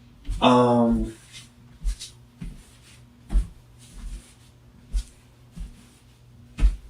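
Scattered light knocks and clicks, about eight over several seconds, like objects being handled or set down, over a faint steady low hum. A short drawn-out voice sound comes just after the start.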